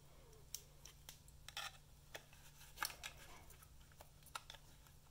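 Faint, scattered clicks and light scrapes from a UE Roll speaker's plastic housing and battery being handled while the battery is worked into place, over a low steady hum.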